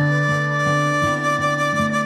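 Background music: a single long held melody note over a lower accompaniment that moves about three notes a second.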